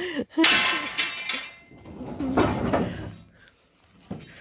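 Scrap metal thrown off a truck crashing onto a scrap pile: a loud crash with metallic ringing about half a second in, then a second, duller crash about two seconds later.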